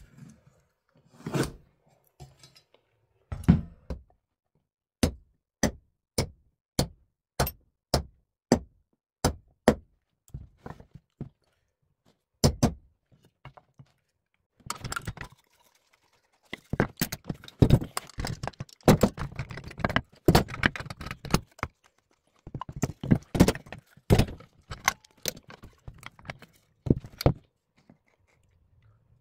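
Woodworking knocks and taps on wood: a run of evenly spaced sharp strikes, about one and a half a second, then a denser stretch of clattering and knocking.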